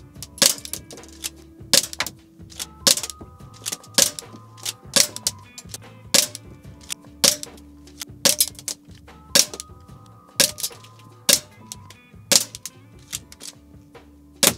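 Airsoft BB gun shots about once a second, each a sharp crack, with lighter clicks of BBs striking the plastic Bluetooth speaker grille in between. Music plays softly underneath.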